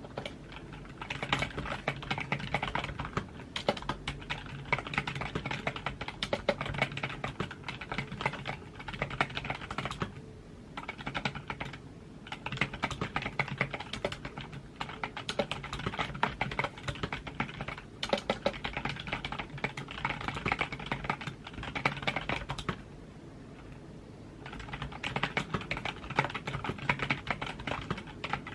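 Typing on a computer keyboard: fast runs of keystroke clicks broken by short pauses, the longest a couple of seconds near the end.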